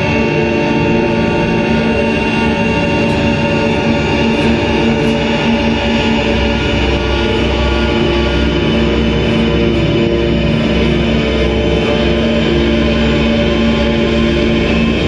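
Loud, dense drone music: many sustained tones layered over a low rumble, held steady throughout, with the low end swelling about halfway through and a few faint crackles high up.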